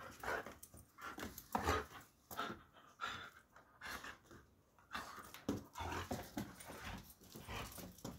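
Doberman pinscher making short, irregular dog sounds while jumping and grabbing at a toy in play.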